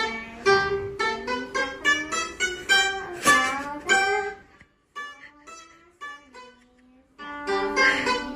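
Background music of quick, bright plucked-string notes. It drops out briefly around the middle, returns softer, then picks up again.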